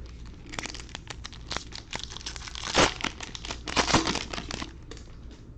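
Wrapper of a Donruss Optic baseball card pack crinkling and tearing as it is ripped open by hand, a run of crackles with the loudest rips about three and four seconds in.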